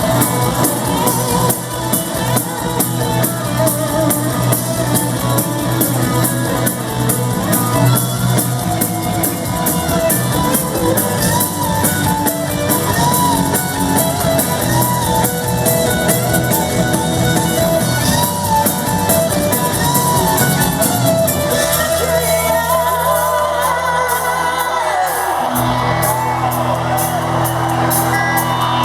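Live rock band playing loudly in a large hall, with singing and crowd shouts. About three quarters of the way through, the steady drum beat drops out, leaving held low notes with gliding higher notes over them.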